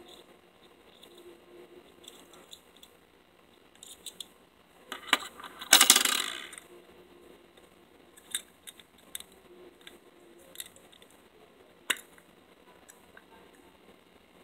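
Small metal gear items, a key ring and a brass pocket compass, clinking and clicking as they are handled, with a louder rattling clatter about halfway through and a sharp click near the end.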